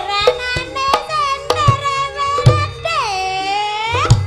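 Javanese gamelan music with a sinden (female singer) holding long notes that slide down and back up near the end, over sharp, irregular kendang drum strokes.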